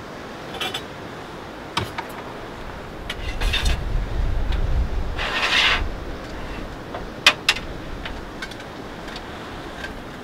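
Clicks and knocks of camp coffee gear being handled on a tailgate table, with two sharp clicks about seven seconds in. A low rumble with a brief hiss runs through the middle few seconds.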